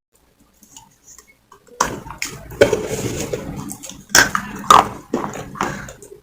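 Soft baked clay crunching and crackling as it is bitten, broken and chewed: a quick run of sharp cracks starting about two seconds in after a near-silent start.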